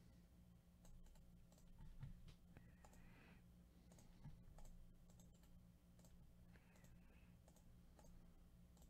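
Faint scattered clicks of a computer mouse and keyboard, over a low steady hum.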